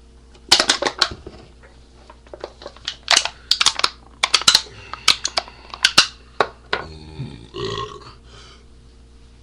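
A man belching after drinking Colt 45 malt liquor. A run of sharp crackling clicks over several seconds is followed near the end by a short belch that bends in pitch.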